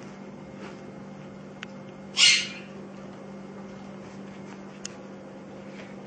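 A pet parrot gives one short, harsh squawk about two seconds in, over a steady low hum.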